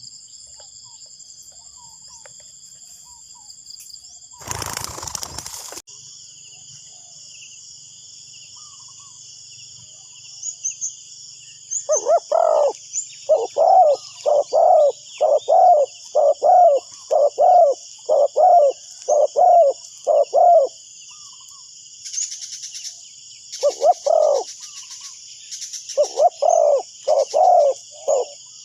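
Spotted dove cooing in a long series of low, evenly spaced notes about a second apart, starting partway through, pausing, then resuming near the end, over a steady high chorus of crickets or cicadas. Early on there is a brief loud rustling burst.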